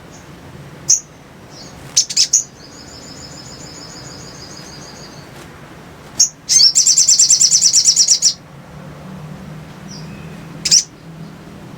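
Sogok ontong, a sunbird, singing: sharp single chirps, a soft trill, then a loud rapid trill of about ten notes a second lasting nearly two seconds, over a faint low hum.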